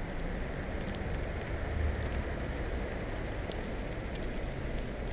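Steady wind buffeting on the microphone and the hiss of bicycle tyres rolling on a gravel path while riding, with a deep rumble underneath.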